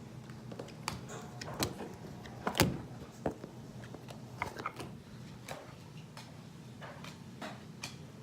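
Uno cards being dealt onto a table into three piles: a run of light, irregular slaps and clicks, with one louder knock about two and a half seconds in.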